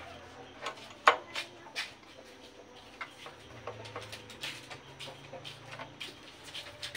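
Metal clicks and clinks of tools and bolts on a motorcycle's front fork being fitted by hand, irregular and scattered, with one sharp clink about a second in.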